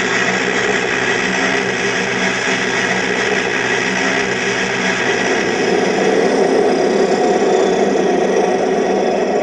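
MD520 scale RC helicopter on the ground with its main rotor turning slowly, its onboard Aerosound sound module playing a steady, loud simulated turbine engine sound.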